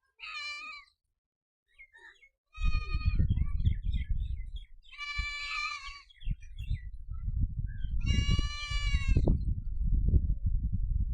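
Four short, high-pitched bleating calls from livestock. From about two and a half seconds in, a loud, uneven low rumble runs underneath them.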